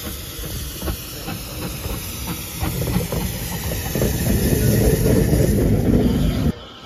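Narrow-gauge steam tank locomotive No. 762 'Lyn' passing close by: a steady steam hiss, with knocks from wheels and rails over a low rumble that grows louder as it goes past. The sound cuts off suddenly near the end.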